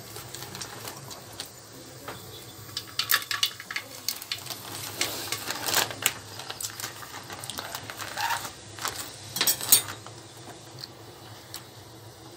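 Whole spices crackling and popping in hot oil in an aluminium pot, irregular sharp clicks coming in clusters, loudest near the end, over a steady low hum.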